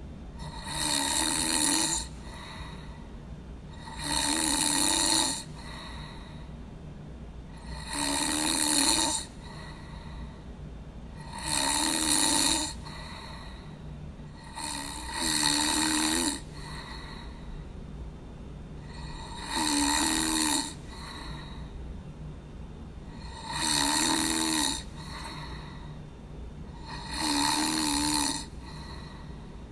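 A person snoring in a slow, regular rhythm: eight snores, one about every four seconds, each lasting about a second.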